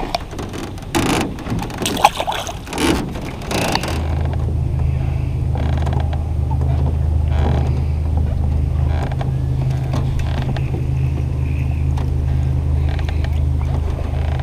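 Knocks and clatter in an aluminium boat for the first few seconds, then a steady low hum from about four seconds in: an electric bow-mount trolling motor running.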